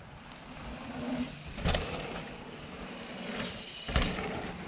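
Mountain bike running fast down a dirt jump line, its tyres rumbling on the dirt, with two sharp thumps of the bike landing, about a second and a half in and again about four seconds in.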